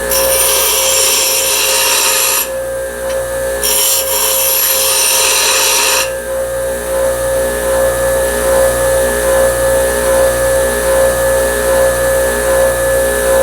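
A power sander's motor hums steadily while a forged steel knife blank is ground against the abrasive. The grinding is a bright, hissy scraping in two passes of a couple of seconds each, with a short break between them. After about six seconds the sander keeps running with nothing against it.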